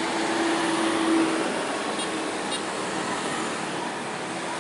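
Steady din of slow, dense road traffic: motorcycles, cars and trucks running past. A low steady hum sits under it for the first second and a half, then fades.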